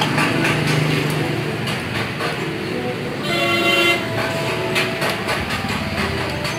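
Loud, continuous rumble of passing vehicles, with a horn sounding briefly about three seconds in, and scattered light clicks.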